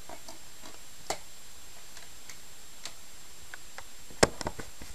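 A series of light clicks and taps as a CD/DVD is pressed onto a laptop's open optical drive tray, with one louder click, quickly followed by a few smaller ones, about four seconds in.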